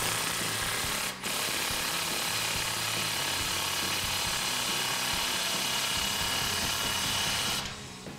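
Milwaukee Fuel cordless power tool running on the nut of an exhaust band clamp, tightening it down. It runs steadily for about seven and a half seconds, with a short break about a second in, then stops.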